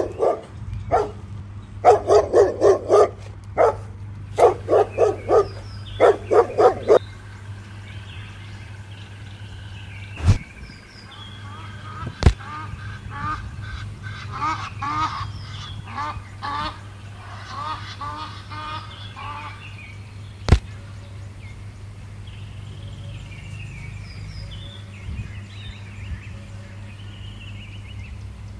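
A run of about fourteen short, loud animal calls in quick groups over the first seven seconds, then fainter, higher calls, over a steady low hum. Three sharp knocks stand out along the way.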